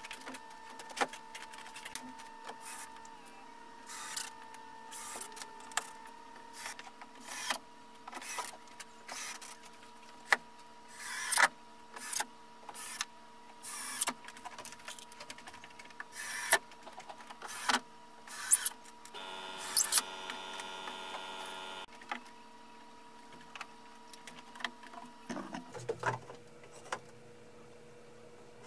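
Irregular sharp knocks and clicks of parts being handled and fitted into a wooden pool table body, over a steady electrical hum. About two-thirds of the way through, a small electric motor buzzes for about three seconds.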